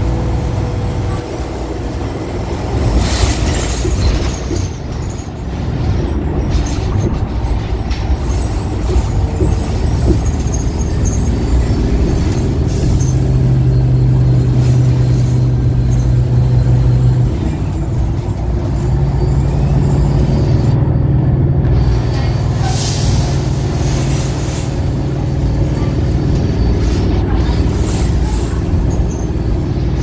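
Inside a 2016 New Flyer XDE60 articulated diesel-electric hybrid bus with a BAE hybrid drive under way: a steady drive hum and whine over road noise, dipping briefly about seventeen seconds in. Two short air hisses, one about three seconds in and one a little after twenty-two seconds.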